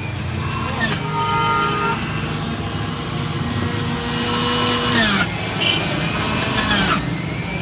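Street traffic noise: a steady rumble of passing vehicles, with a few brief held tones.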